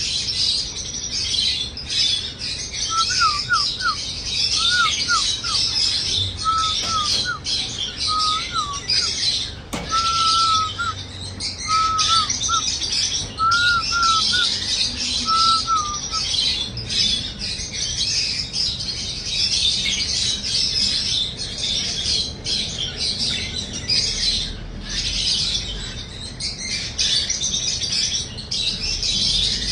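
Many pet birds chirping together in a dense, continuous high chatter. A bird whistles a run of short, clear, lower notes from about three seconds in until about halfway through.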